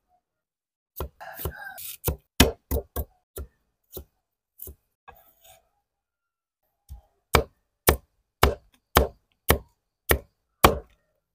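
Large knife chopping ginger on a thick round wooden chopping block. A first run of about six uneven strokes is followed by a pause of a few seconds. A steady run of strokes then follows, about two a second.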